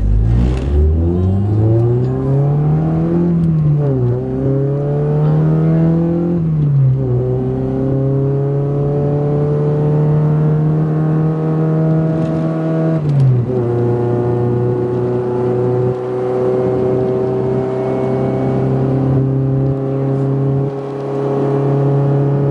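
2008 Honda Civic Si's 2.0-litre four-cylinder engine, fitted with a catless race header and cat-back exhaust, revving up and dropping back twice through the gears. It then holds steady revs under way, with a brief dip and recovery about 13 seconds in.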